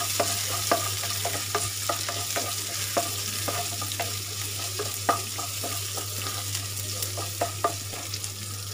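Sliced shallots sizzling in coconut oil in a nonstick kadai, sautéing until they wilt, while a wooden spatula stirs them with frequent irregular scrapes and taps against the pan.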